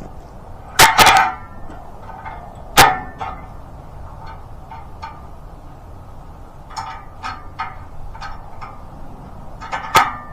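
Sharp clanks and knocks from handling an oak log on a portable sawmill's steel bed: a loud cluster about a second in, another near three seconds, a run of lighter knocks around seven to nine seconds, and one more sharp clank near the end.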